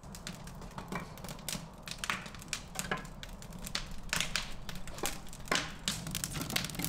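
Clay bricks clicking and knocking lightly as they are handled on a dry-stacked brick tandoor: irregular small taps several times a second, with a few louder knocks, over a low steady hum.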